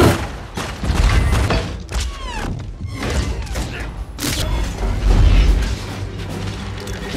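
Film battle sound effects: a dense run of booms, thuds and metallic crashes as robot drones are blasted and smashed, with a few short gliding tones about two seconds in and the heaviest deep boom about five seconds in, over orchestral score.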